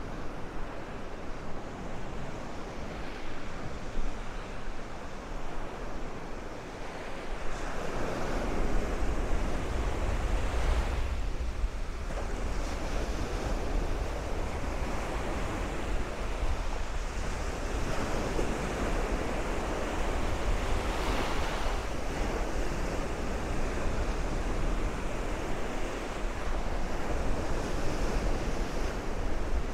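Gulf of Mexico surf washing onto the beach in repeated swells, with wind buffeting the microphone as a low rumble that grows stronger about eight seconds in.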